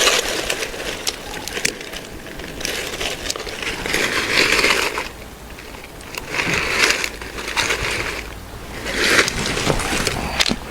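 Crunching noises coming in bursts every couple of seconds, with small clicks between them.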